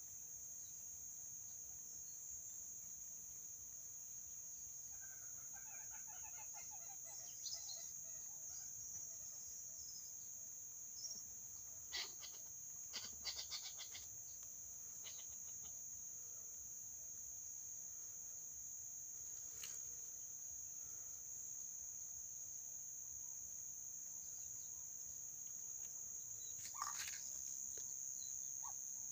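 Faint clucking calls of common gallinules, over a steady high insect drone. A few sharp clicks come about twelve seconds in, then a quick run of them and a single one near the end.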